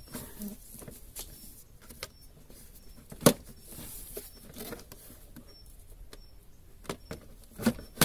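Lada Vesta's plastic lower dashboard trim panel being handled and pressed into place: scattered light clicks and knocks, one sharp knock about three seconds in and a few more near the end.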